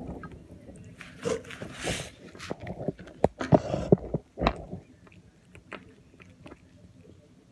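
A cat chewing and crunching a chicken bone: irregular crunches and clicks, busiest and loudest in the first half, then sparser and quieter.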